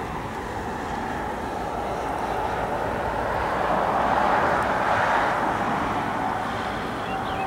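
Airbus A330-900neo's Rolls-Royce Trent 7000 turbofan engines running as the airliner moves on the runway: a steady jet rumble with a whine, swelling to its loudest about halfway through and then easing slightly.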